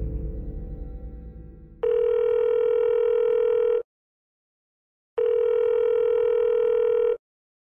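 Telephone ringback tone, the sound of an outgoing call ringing: a steady buzzing tone for about two seconds, twice, with a pause of about a second and a half between. Ambient music fades out over the first two seconds before it.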